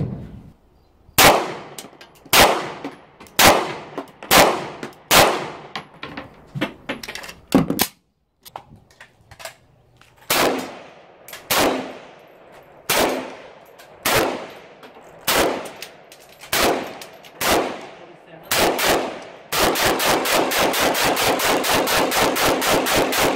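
Rifle fire at an outdoor range: single shots about a second apart, each trailing off in echo. After a short break, an AK-pattern rifle fires more single shots about a second apart, then a rapid string of about eight shots a second near the end.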